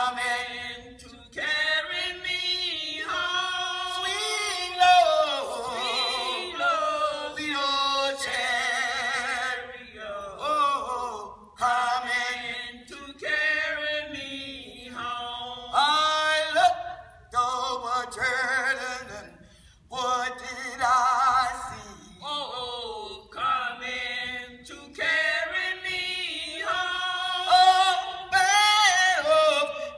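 A small group of women singing a gospel song a cappella, in long held phrases with vibrato and short breaks between lines.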